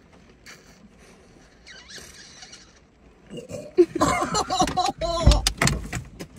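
A person's wordless vocal sounds begin about three seconds in, together with several sharp clicks or knocks and a heavy low thump near the end.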